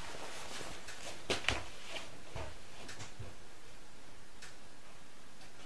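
Two light clicks in quick succession about a second and a half in, then a few faint ticks over low room hiss.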